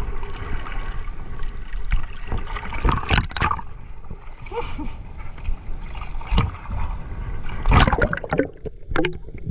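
Sea water sloshing and lapping around a camera held at the surface, broken by several loud splashes. Near the end the camera goes under and the sound turns duller.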